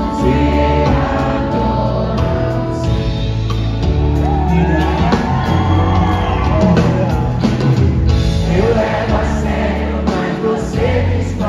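Live band playing through a concert sound system, recorded from among the audience, with singing over it and a few whoops from the crowd.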